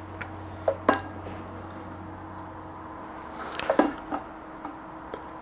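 Plastic FPV goggles set down on the glass platform of a kitchen scale: a couple of sharp knocks about a second in, then a louder cluster of knocks and clinks against the glass nearly four seconds in.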